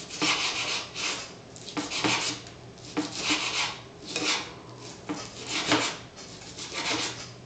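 Kitchen knife chopping raw sirloin steak by hand on a wooden cutting board: the blade scrapes and rasps against the board in short strokes, about one a second.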